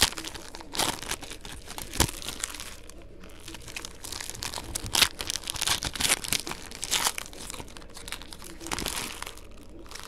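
Foil wrapper of a football trading-card pack crinkling and tearing as it is ripped open by hand, in a run of irregular short crackles.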